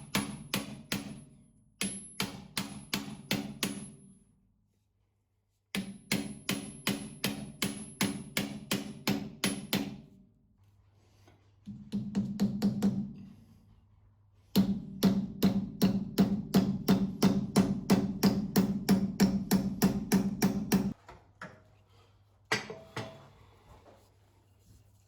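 Rapid, evenly spaced hammer blows, about three to four a second, in several bursts with pauses between them; each blow rings briefly.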